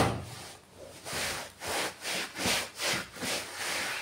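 Damp cloth wrapped around a pan lid rubbed back and forth over a fabric sofa cushion: a rasping scrub in repeated strokes, roughly two a second, dry-cleaning dust out of the upholstery. A sharp knock sounds right at the start.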